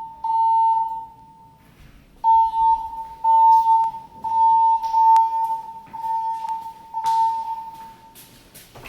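Building fire alarm evacuation tone from the voice-evacuation speakers: a loud, high steady beep sounding in repeated pulses under a second long, with one pause of about a second near the start.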